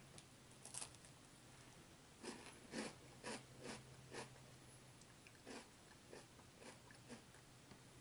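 A person biting into and chewing a crisp baked pastry stick. There is a faint crunch a little under a second in, then a close run of crisp crunches, thinning out toward the end.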